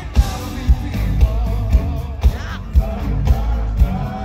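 Live band playing with a male lead singer: a steady kick-drum beat about twice a second under guitars and keyboard, heard from the crowd.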